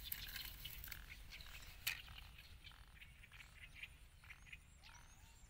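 Quiet handling sounds: grass rustling and light clicks of a plastic toy dump truck being picked up and its tipper bed moved, with one sharper click about two seconds in. Faint high chirps sound in the background.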